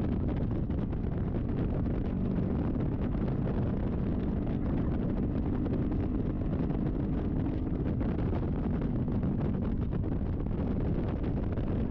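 Kawasaki Vulcan S 650's parallel-twin engine running at a steady cruise with road and wind noise, wind buffeting the microphone throughout.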